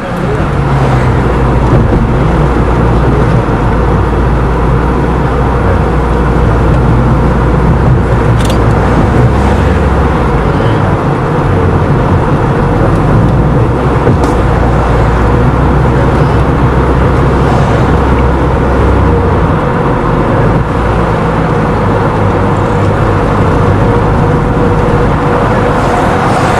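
A car being driven at speed: steady engine and tyre noise with a low rumble that eases off about ten seconds in and again near two-thirds of the way through.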